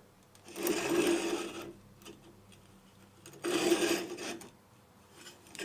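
A knife handle rasping against the abrasive belt on a belt grinder's contact wheel, in two short passes about a second each with a pause between.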